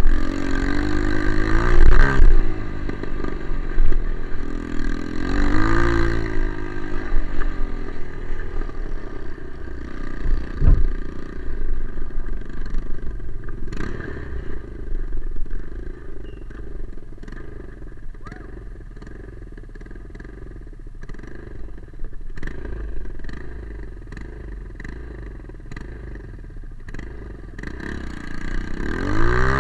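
Trail motorcycle engine revving up and easing off several times, with pitch swells near the start, around six seconds in and at the end. In between it runs quieter at lower revs, with scattered short knocks.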